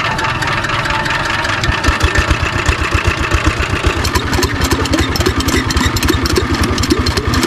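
Small irrigation water-pump engine running with a steady, even chug, its beat becoming regular about two seconds in. From about four seconds in, water splashes as it is poured into the hand-pump well head to prime it.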